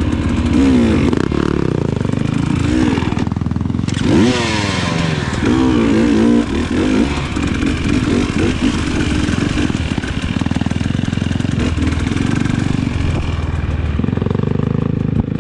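Off-road dirt bike engine revving up and down again and again, its pitch rising and falling every second or two as the throttle is worked.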